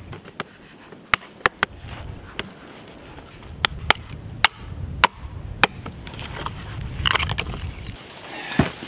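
A string of sharp, irregular knocks and cracks, about one every half second to a second, over a low rumble, with a brief rush of noise about seven seconds in.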